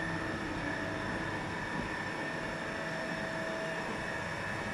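Steady mechanical hum of running machinery, with several fixed whining tones held over an even drone.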